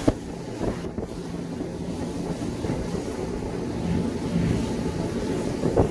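Cruise boat's engine running steadily as a low hum, with wind buffeting the microphone.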